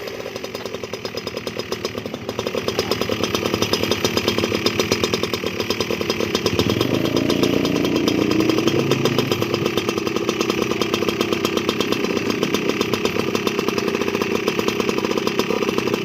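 A 71cc engine running with a fast, steady pulsing note, getting louder over the first few seconds and shifting in pitch for a few seconds near the middle.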